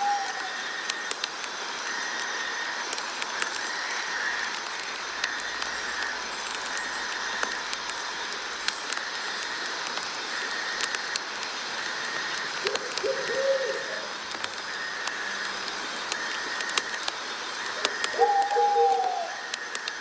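Night nature ambience: a high, chirring chorus that pulses on and off about once a second, with short cooing calls about twelve seconds in and again near the end.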